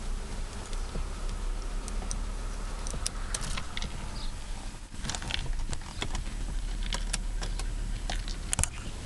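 Keys clinking and jingling in a run of light, uneven clicks over a steady low hum in a car cabin.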